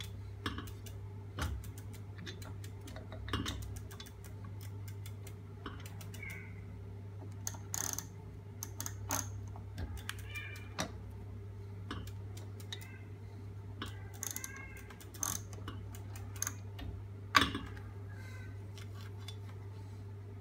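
Irregular metal clicks and knocks as a bearing-mounted spindle with a sprocket is handled and turned by hand, over a steady low hum. A few short squeaks come in around the middle.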